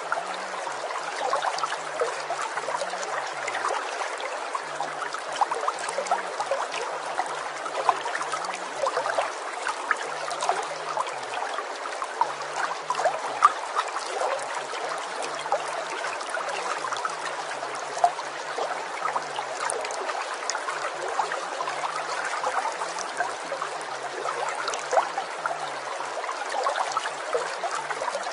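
Running water trickling steadily, like a small stream, with many tiny splashing clicks. A faint low tone wavers up and down in pitch underneath.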